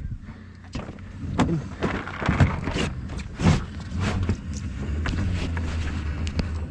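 Knocks and clatters of gear being handled aboard a small boat, then a steady low motor drone sets in about four seconds in.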